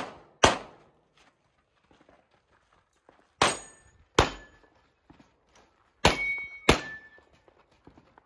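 Five suppressed pistol shots, spaced irregularly, each sudden and short. A brief metallic ring follows several of them from steel targets being hit.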